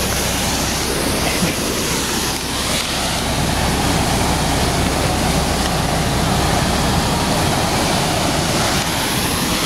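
Steady rushing engine and road noise inside a moving double-decker bus, with a low engine hum that fades near the end.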